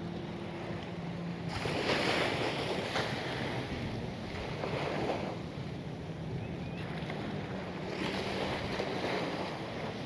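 Surf washing onto a sandy beach, swelling louder about every three seconds, with wind on the microphone and a faint low steady hum underneath.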